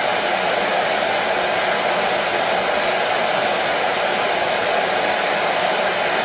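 Washing machine running, a steady, unchanging noise with no knocks or breaks.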